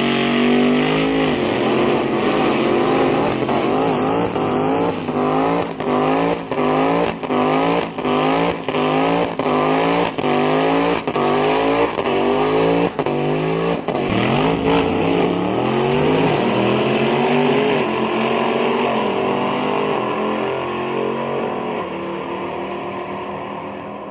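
Drag race car engine revving in a series of rising pulses, each cut off sharply, about one and a half a second. It then settles into a steadier run that fades away over the last several seconds.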